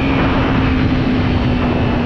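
125cc sport motorcycle engine running at speed, its note falling slowly as the bike slows, under a heavy rush of wind on the microphone.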